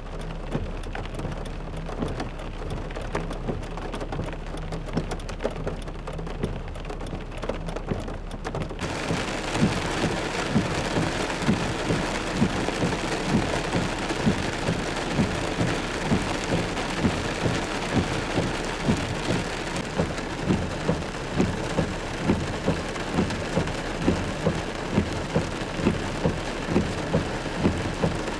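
Heavy rain pouring down, with scattered drop clicks at first, then much louder and fuller about nine seconds in, with a regular knocking beat of roughly two a second.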